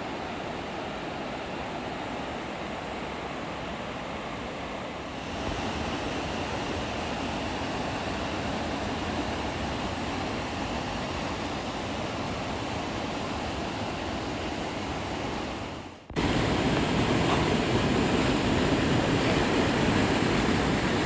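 Steady rushing of a waterfall's falling water, changing abruptly twice: a step louder about five seconds in, then a brief drop about three quarters of the way through followed by a louder, deeper rush.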